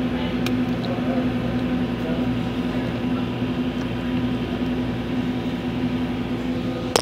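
Self-serve cappuccino machine running as it dispenses a drink into a cup: a steady mechanical hum with a strong low tone.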